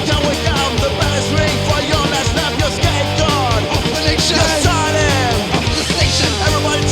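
Punk-rock crossover band playing loud and steady: full band with drums and bass, with sliding melodic lines falling in pitch about four to five seconds in.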